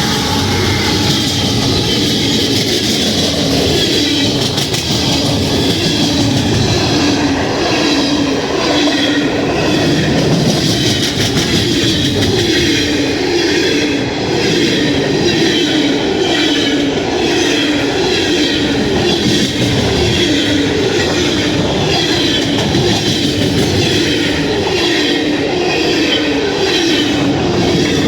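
Cars of a passing CSX freight train rolling by in a steady rumble, with the rhythmic clickety-clack of wheels over rail joints.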